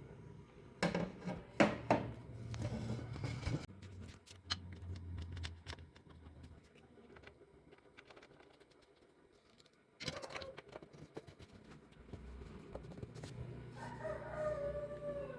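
Clicks, knocks and rattles of PC parts being handled and fitted back into the case, loudest in the first few seconds and again about ten seconds in. Near the end a chicken calls once in the background.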